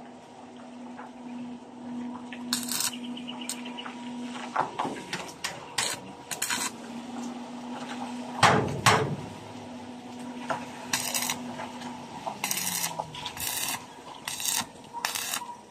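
Metal clinks, short scrapes and one heavy knock about halfway through, as a hand tool works on the steel sliding gate's bottom fittings. A steady low hum sits behind it and drops in pitch near the end.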